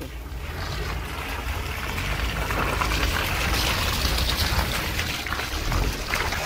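Tyres of a 2003 Mitsubishi Pajero iO splashing through deep muddy puddles as the SUV drives past close by, a rushing, sloshing hiss of water over a low rumble. The splashing grows louder over the first two seconds and stays strong after that.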